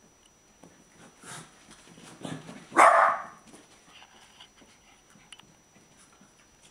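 Small dogs at play: one loud, short bark about three seconds in, with fainter dog noises shortly before it.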